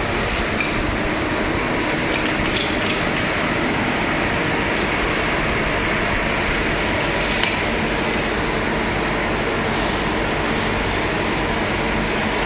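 Steady machinery noise of a solid-fuel thermal oil boiler plant running, with a few faint clicks.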